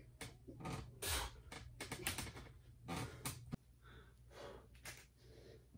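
A man breathing hard in short, forceful breaths while straining through lever pull-ups, about one a second, over a low steady hum that cuts off about three and a half seconds in; softer breaths follow.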